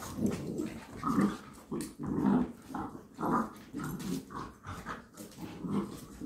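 Shih Tzu and puggle puppies play-fighting, with a string of short growls, one or two a second.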